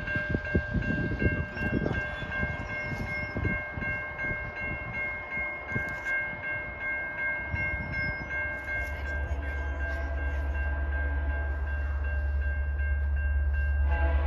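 Safetran Type 3 electronic crossing bell ringing in evenly repeated dings, with wind buffeting the microphone. From about nine seconds in, the low drone of an approaching diesel passenger locomotive builds steadily louder.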